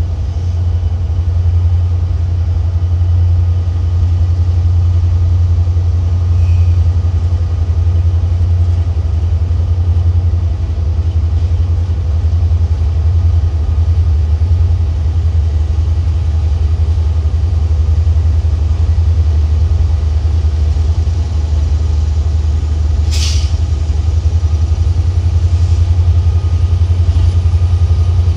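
Diesel railroad locomotive engine running with a steady, loud low drone. About five seconds before the end comes one short, sharp hiss.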